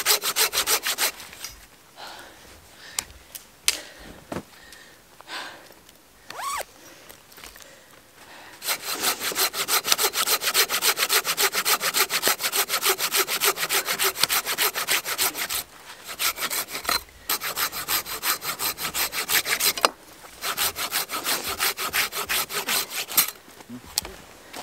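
Folding pruning saw cutting through a downed birch log: quick, even back-and-forth strokes in runs of several seconds with short pauses between, after a stretch of quieter, irregular scraping in the first several seconds.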